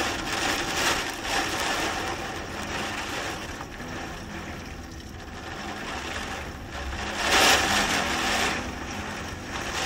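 Gusty storm wind and rain from a hurricane: a steady rushing that swells in gusts, about a second in and again around seven to eight seconds in.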